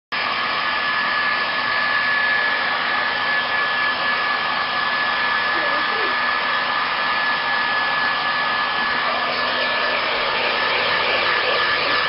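Handheld hair dryer running steadily: a constant rush of blown air with a thin, steady high whine.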